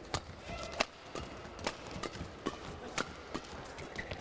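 Badminton doubles rally: rackets striking the shuttlecock in a fast exchange, sharp smacks at about two a second, irregularly spaced.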